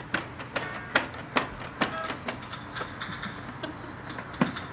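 Baby's hands slapping and pressing the plastic buttons and panels of an electronic activity table toy: irregular sharp plastic clicks and taps, a few a second, with two short tones about a second in and about two seconds in.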